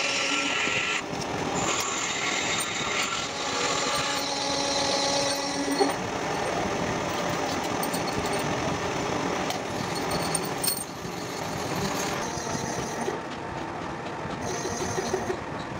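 A valve-seat cutting machine's spindle running, its cutter machining the valve seats of a diesel cylinder head with a whining, chattering metal-cutting noise whose pitch shifts several times. There is a single sharp click just before six seconds in.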